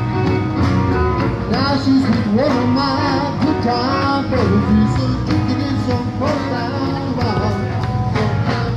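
Music: a song with a singer over a band with a steady beat.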